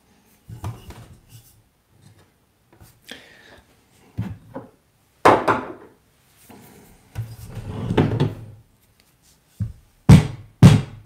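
Espresso portafilter and metal accessories being handled at the machine: scattered clicks, clacks and a rattle, with two or three loud knocks about ten seconds in.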